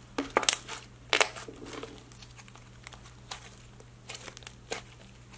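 Fluffy, airy slime thickened with clay being stretched and squeezed by hand, giving irregular sticky pops and crackles as the air pockets in it burst. The biggest pops come in the first second and a half, then smaller scattered ones.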